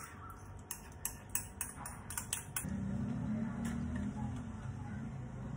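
A utensil clicking and scraping against a jug as gelatin dissolved in milk is scraped out: a quick, irregular run of light ticks. About halfway through the ticks stop and a steady low hum sets in.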